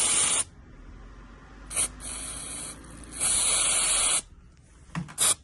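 Aerosol cleaner sprayed in bursts to wash drill swarf out of a motorcycle cylinder: short hisses that start and stop sharply, a longer spray of about a second past the middle, then a few quick puffs near the end.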